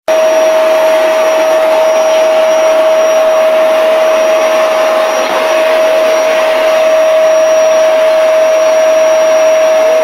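Vacuum cleaner running steadily: a loud, even rush of air with a constant whine.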